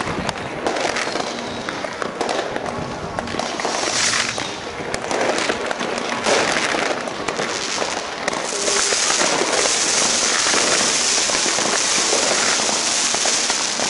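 Fireworks and firecrackers going off: a dense run of sharp bangs and crackles, turning from about eight seconds in into a steady, hissing crackle as a shower of sparks comes down.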